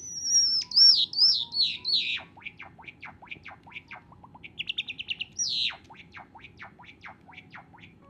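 Male white Java sparrow singing its song: a run of falling whistled notes, then a quick series of sharp downward-sweeping notes, a short fast trill about five seconds in, and more sweeping notes that stop shortly before the end.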